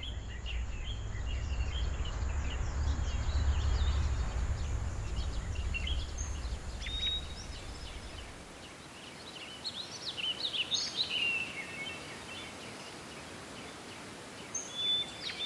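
Outdoor ambience of small birds chirping and calling in short, quick notes, over a low rumble that cuts off about eight seconds in. The chirping grows busier in the second half.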